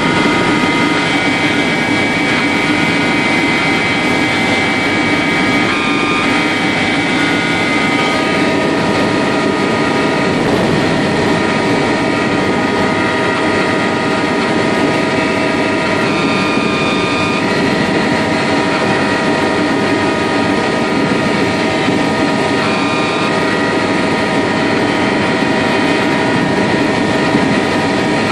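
Helicopter in flight, heard from inside the cabin: a steady drone of engine and rotor with several fixed high whines riding over it, holding level throughout.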